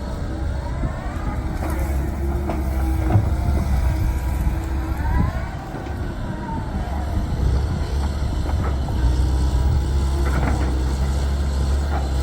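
Komatsu PC130 hydraulic excavator's diesel engine running steadily under digging load, with a hydraulic whine that rises and falls twice and a few short knocks.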